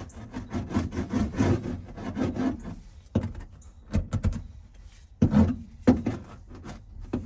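Hand roller being worked back and forth over sound-deadening mat to press it flat onto the car's floor: repeated rubbing, scraping strokes, with a few louder knocks in the second half.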